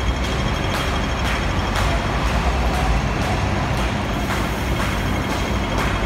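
Hong Kong pedestrian crossing signal ticking about twice a second over the steady rumble of double-decker buses and road traffic.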